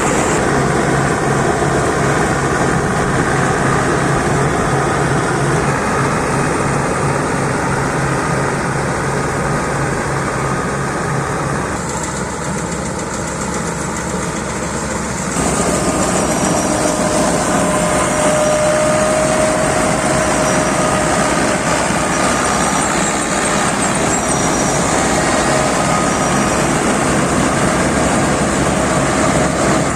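Rice combine harvester running: the engine and threshing machinery make a loud, steady mechanical din. The sound changes about twelve seconds in and again about fifteen seconds in, as the machine's note and load shift.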